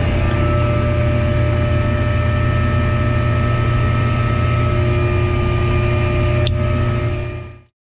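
Pilatus PC-7 Mk II turboprop engine and propeller running steadily while taxiing, heard from inside the cockpit: a deep drone with several steady whining tones. A single click about six and a half seconds in, then the sound fades out near the end.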